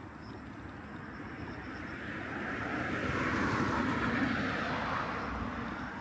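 A vehicle passing by: a steady rushing noise that swells to its loudest about halfway through and then fades away.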